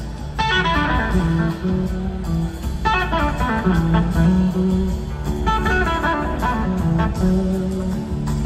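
Live blues-rock band playing an instrumental jam: an electric slide guitar plays phrases of gliding notes over a bass line and drums.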